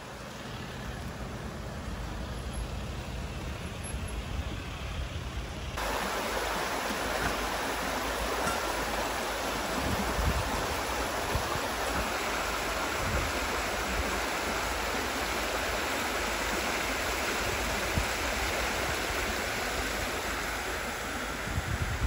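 Steady rush of flowing stream water, becoming suddenly louder about six seconds in.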